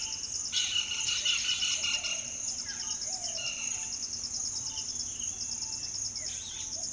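Summer dawn chorus recorded in a restored dry tropical forest in central India: a steady, fast-pulsing high insect trill throughout, with many birds calling over it, busiest about a second in.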